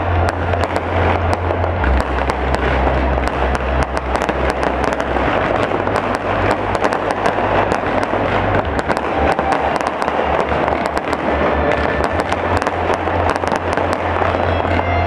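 Aerial fireworks bursting in a dense, continuous run of crackles and pops.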